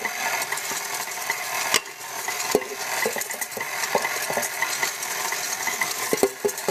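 Wire whisk beating egg yolks and sugar in a stainless steel bowl. The wires scrape and clink steadily against the metal, with frequent short clicks throughout.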